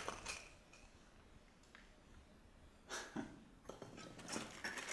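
Mostly quiet room tone inside a rock tunnel, broken by a few brief soft scuffs and rustles at the start, about three seconds in, and near the end.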